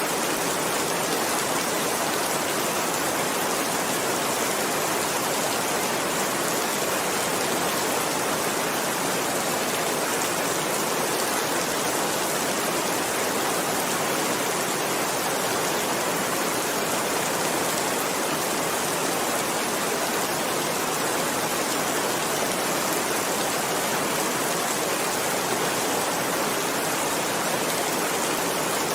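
Steady heavy rain, an even hiss that holds without a break or change.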